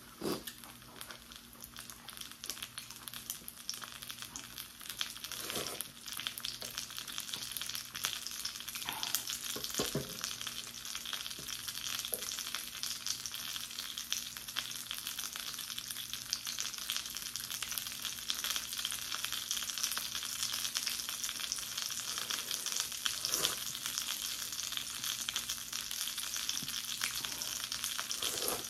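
Kimchi dumplings sizzling in a nonstick frying pan on a hot burner, a steady hissing fry that grows louder about eight seconds in. A few soft knocks sound over it.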